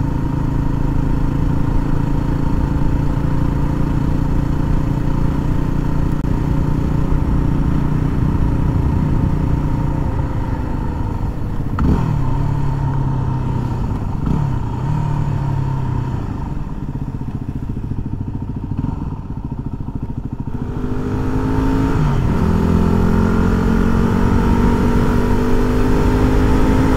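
Yamaha WR250R's single-cylinder engine under way, picked up by a helmet-mounted mic: it runs steadily at a cruising pitch, drops sharply in pitch twice about halfway through as gears change, goes quieter for a few seconds, then pulls with rising pitch and another quick dip as it accelerates again toward the end.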